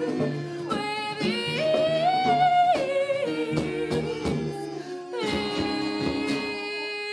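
Singing: a voice holding long notes that slide from one pitch to the next.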